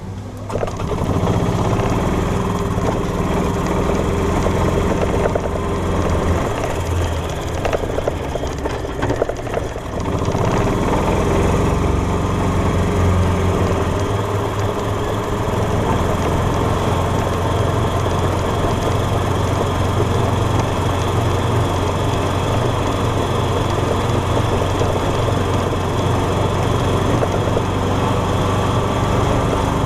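Golf cart engine running steadily as the cart drives, getting louder about half a second in as it pulls away; its steady hum wavers briefly between about six and ten seconds in.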